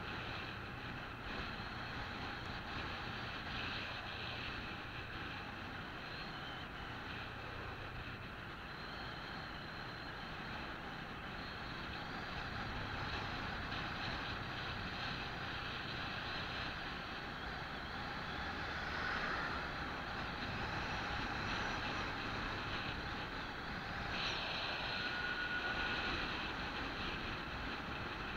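Steady wind rush on the microphone and road noise from a motorbike riding along, with a faint low engine hum underneath.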